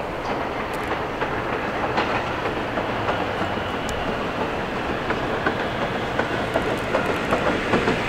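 Staten Island Railway R44 subway train approaching, a steady rumble with wheels clicking over the rail joints, growing slightly louder as it nears.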